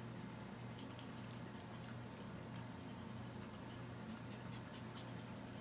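Two small dogs, a Pomeranian and a Shiba Inu, nosing and licking at french fries on a tile floor: faint scattered clicks and wet smacks over a steady low hum.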